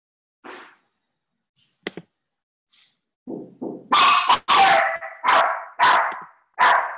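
A dog barking: a faint sound and a click in the first two seconds, then a run of loud, short barks about two a second from about three seconds in.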